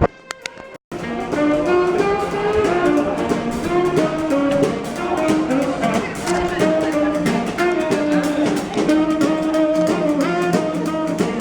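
Background music with a melody over a steady beat, starting up after a brief dip less than a second in.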